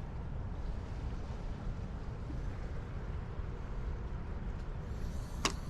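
Steady low outdoor rumble with one sharp click about five and a half seconds in.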